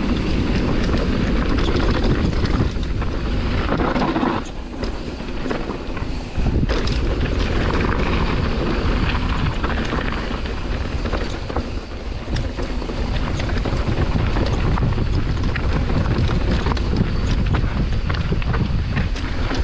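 Mountain bike descending a rough, rocky downhill track: tyres clattering over rocks and the bike rattling, with wind buffeting the microphone.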